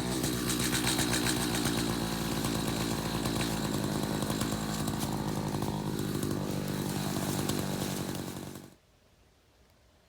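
Two-stroke chainsaw running steadily, then stopping about nine seconds in.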